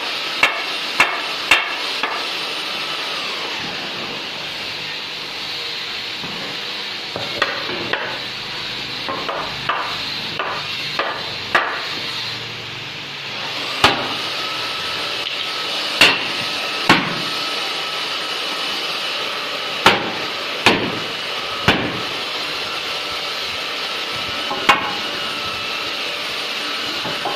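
Hammer blows on wood, struck one at a time at irregular intervals, with a quicker run of lighter taps between about 7 and 12 seconds in, over a steady background hum.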